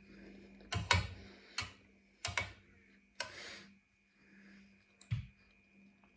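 A few sharp light clicks and taps, scattered irregularly, with a short rustle about three seconds in: small handling noises at the table while eating.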